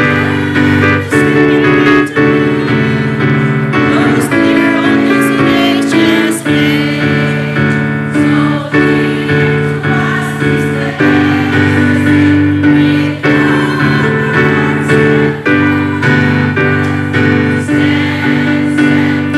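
A group of people singing a song together to electronic keyboard accompaniment, with sustained chords under the voices.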